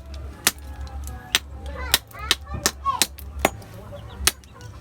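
Sahang shellfish shells being cracked open by repeated hard strikes: about six sharp knocks spaced roughly half a second to a second apart. Faint high calls and voices sound between the knocks.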